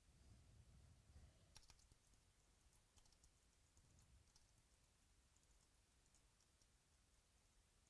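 Near silence with a few faint, sharp clicks: a small cluster about one and a half seconds in, then single ones around three and four seconds.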